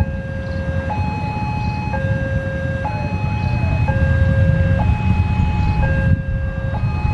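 Railway level-crossing warning alarm sounding a two-tone signal, a lower and a higher tone alternating about once a second, the signal that a train is approaching the crossing. A steady low rumble runs underneath.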